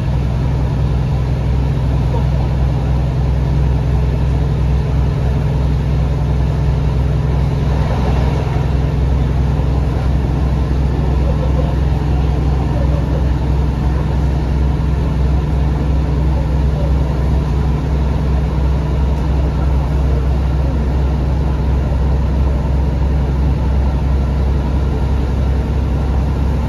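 Cabin sound of a Class 150 Sprinter diesel multiple unit running at speed: a steady low drone from its underfloor diesel engines over the rumble of wheels on the rails.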